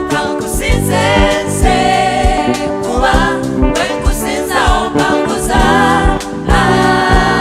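Gospel song in a Ugandan language: voices singing long, wavering lines over a steady beat of drums and bass.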